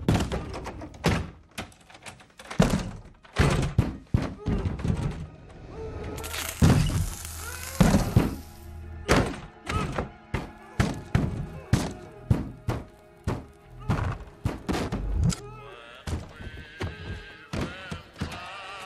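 Heavy thuds of fists pounding on a wooden door, irregular, about one or two a second throughout. Film music comes in under them about halfway through.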